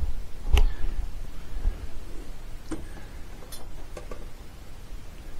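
A few light, scattered clicks and taps, about four spread over several seconds, over a faint low rumble.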